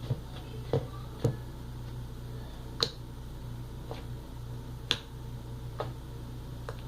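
Slime being squeezed and stretched by hand, trapped air popping out in sharp little clicks, about eight of them at irregular intervals, over a steady low hum.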